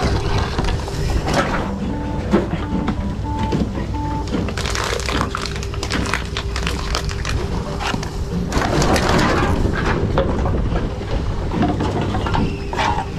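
TOMRA reverse vending machines taking in empty plastic bottles and aluminium cans. Containers clunk and rattle as they are pushed into the intake and carried away, over the machines' steady running hum. A short series of beeps sounds about two seconds in, and again near the end.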